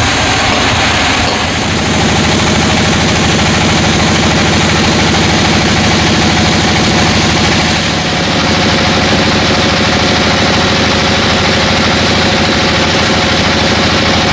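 A sawmill's engine running steadily with a fast, even firing pulse, easing off briefly twice.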